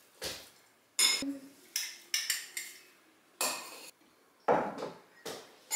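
Metal spoons clinking and scraping against glass cups and serving bowls as yogurt parfaits are layered with granola and fruit: about nine short clinks at irregular intervals.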